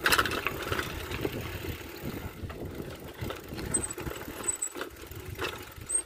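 Motorcycle engine running at low speed as the bike rides over a rough, bumpy track, picked up on a handheld phone's microphone.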